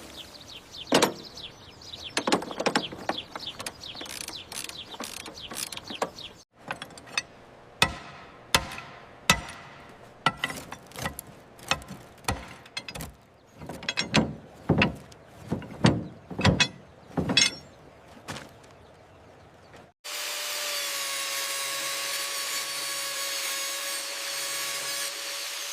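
Workshop tool sounds: a series of sharp metallic clicks, knocks and scrapes, then a power tool running steadily in the last few seconds.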